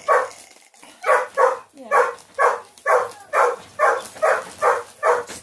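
Pet dog barking in a steady run of short, loud barks, about two a second, some coming in quick pairs.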